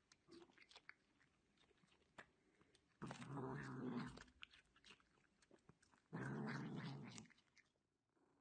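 A black cat biting and chewing a piece of cucumber, with scattered crunchy clicks. Twice, about three and six seconds in, it gives a rough, low growl lasting about a second.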